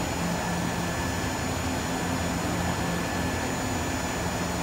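APEX UV 6090 flatbed printer standing idle, its fans giving a steady whirring hum with a faint high whine.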